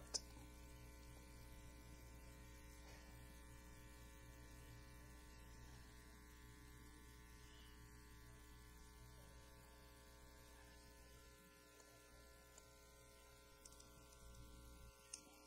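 Near silence: a faint, steady electrical hum, with a few faint ticks near the end.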